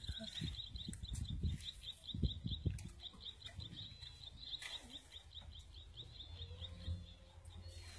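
High, rapidly repeated chirping, about five chirps a second, from a small animal calling near the pond, over a low rumbling noise with a few soft thumps in the first few seconds.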